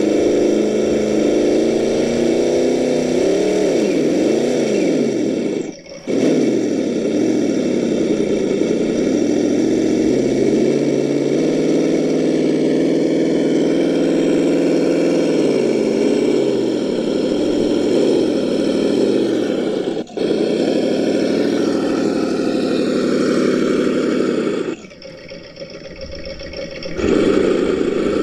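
Simulated engine sound from the Reely sound module in a 1:10 RC Ford Bronco Ranger XLT crawler, rising and falling in pitch as the throttle is worked. It breaks off briefly about six and twenty seconds in and drops quieter for a couple of seconds near the end.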